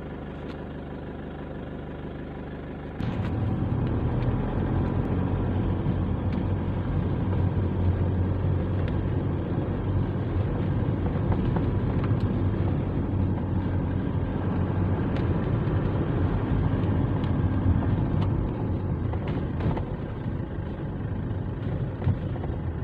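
Car engine and road noise heard from inside the cabin while driving, a steady low rumble that gets louder about three seconds in.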